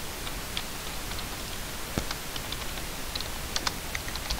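Computer keyboard typing: a single sharp click about two seconds in, then scattered keystrokes over a steady hiss.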